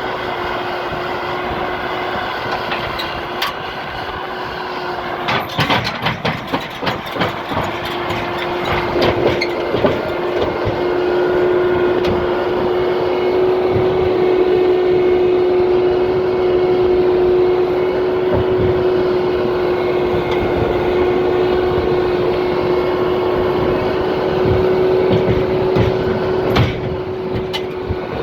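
A road vehicle driving along, its engine and road noise running steadily with a droning hum. A run of knocks comes about five seconds in, and a single sharp knock near the end.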